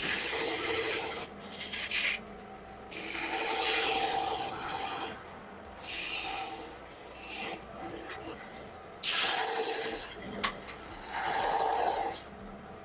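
A hand tool scraping across wood in repeated strokes, each lasting one to two seconds, with short pauses between them.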